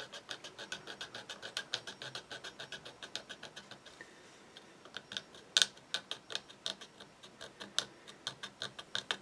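Fine-toothed razor saw cutting through a plastic model kit part in quick, short strokes, about six a second, then after a short lull about four seconds in, slower, sharper strokes.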